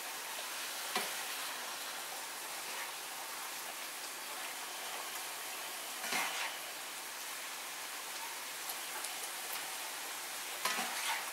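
Cubed stew beef sizzling as it browns in a cast iron skillet, with a plastic spatula stirring and scraping across the pan about a second in, again around six seconds, and near the end.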